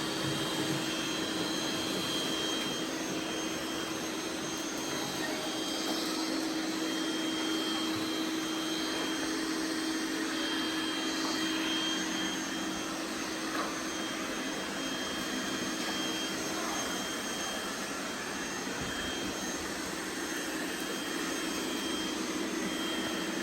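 Robot vacuum cleaners running, a steady whirring noise with a constant whine; a lower hum drops away about two-thirds of the way through.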